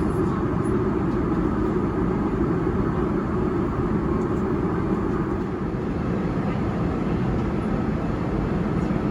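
Steady cabin noise of a Boeing 787-9 airliner in flight: an even, low rushing of engine and airflow noise with no change.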